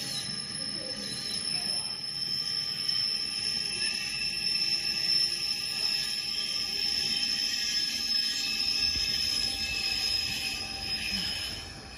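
LEGO train running along plastic track, a steady high motor whine over the noise of its wheels rolling on the rails.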